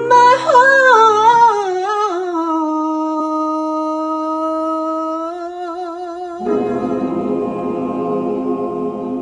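A solo female voice sings a slow, ornamented descending line, then holds one long note. About six and a half seconds in, the choir comes in underneath on a sustained humming chord.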